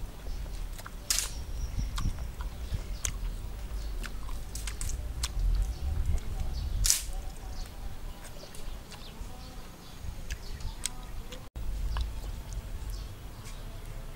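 Close-up eating sounds: a person chewing with wet mouth clicks and lip smacks, irregular throughout, with two louder smacks about a second in and again near seven seconds.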